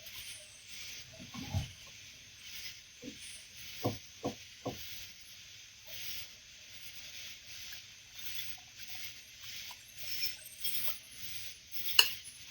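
Faint steady hiss with a few light knocks and taps: three quick ones about four seconds in, and a sharper single one near the end.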